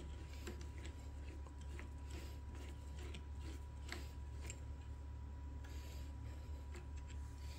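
Faint, scattered small clicks of a hex key turning in the bolt of a motorcycle bar-end mirror, over a steady low hum.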